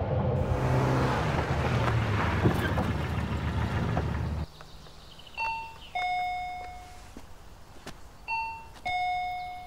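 A car running, a steady rush with a low hum, cuts off suddenly about four and a half seconds in. Then a two-tone doorbell chime rings twice, about three seconds apart: each time a short high note drops to a lower one that rings and fades.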